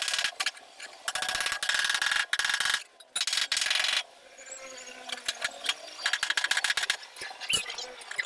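A power tool rattling against truck-cab sheet metal in several bursts of rapid, even clicking, each lasting up to about two seconds with short pauses between.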